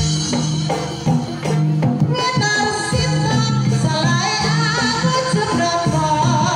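Jaranan gamelan music: kendang barrel drums struck by hand in a driving rhythm over ringing gong-type kettle instruments. A woman's singing voice joins about two seconds in.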